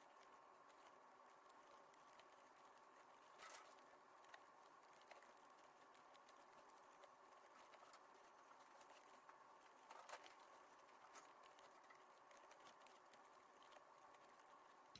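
Near silence: a faint steady hiss with scattered tiny clicks and two soft ticks, one about three seconds in and one about ten seconds in.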